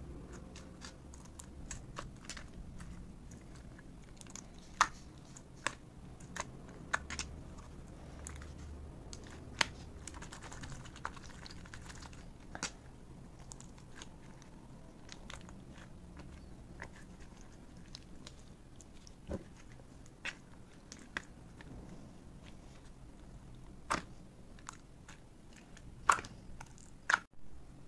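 Clear slime packed with foam beads being squeezed and pressed by hand, giving irregular sharp clicks and crunchy pops, with a few louder pops near the end.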